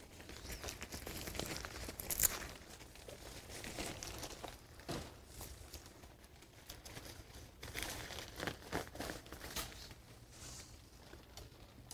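Nylon tent rain fly rustling and crinkling as it is handled, with short rasps of Velcro tabs being pulled open and wrapped around the tent poles; the sharpest rasp comes about two seconds in.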